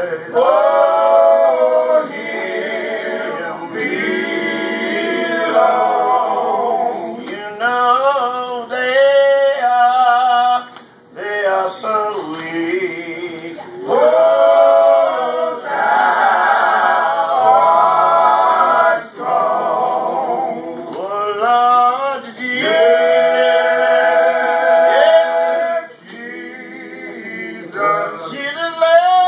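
A group of men singing a cappella in harmony, several voices together, with long held chords and short pauses between phrases.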